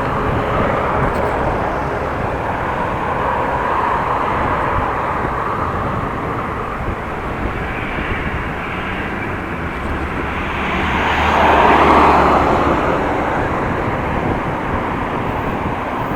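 Road traffic and wind noise heard from a moving bicycle, with a low engine hum from a passing vehicle that swells to its loudest about twelve seconds in and then fades.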